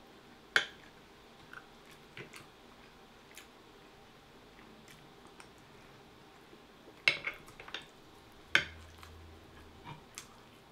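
A spoon knocking and scraping against a glass dish as food is scooped up, in a few sharp clinks: one about half a second in, a quick cluster around seven seconds, another near nine seconds. Faint small clicks fall between them.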